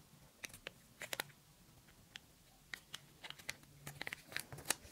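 Kraft paper crinkling and crackling in short, scattered crackles as a rectangle is folded in half and the crease pressed flat, the crackles coming more often near the end.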